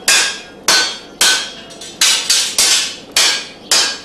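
Blacksmith's hand hammer striking metal on an anvil, about eight ringing blows at an uneven pace of roughly two a second.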